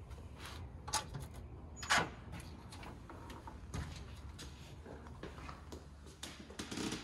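Front door lock and latch clicking as the door is unlocked and opened: a few sharp clicks, the loudest about two seconds in, with softer handling knocks after.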